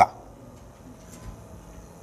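A pause in a man's spoken lecture: only faint room tone with a steady hiss.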